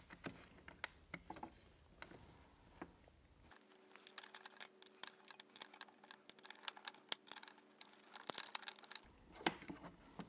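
Faint clicks and ticks of an Allen wrench turning small bolts in a metal bracket, with small hardware knocking on the bracket.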